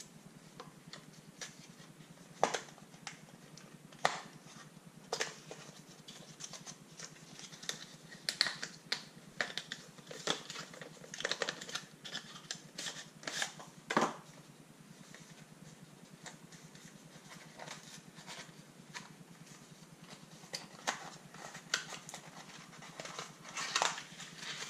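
Small cardboard box and its contents being handled and unpacked: irregular rustles, scrapes and sharp clicks, a few louder knocks among them. A low steady hum runs underneath.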